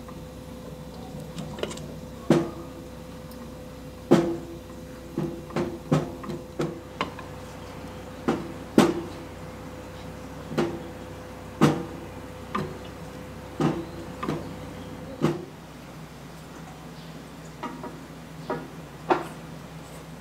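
Sharp knocks, about a dozen at irregular intervals, as the portafilter is worked back and forth in the group head of a La Marzocco Linea Mini espresso machine. The group head shifts because the bolts holding the brew head have come loose. A steady faint hum runs under the knocks and stops about fifteen seconds in, and a few fainter clicks follow.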